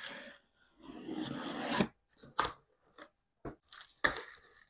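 A blade slitting the packing tape on a cardboard box: one long rasping cut that grows louder and stops sharply. A few clicks follow, then the cardboard flaps scrape as they are pulled open near the end.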